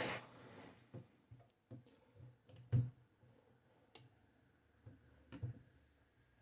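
Metal carriage of a Mercedes Modell 4 typewriter being worked off the chassis: scattered clicks and knocks of metal parts, the loudest nearly three seconds in.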